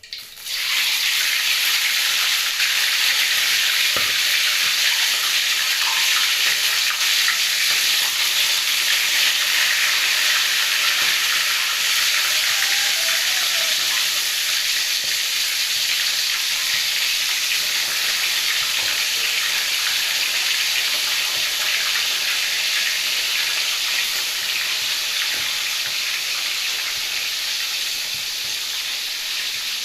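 Fish frying in hot oil in a pan: a loud, steady sizzle that starts abruptly and eases slightly toward the end.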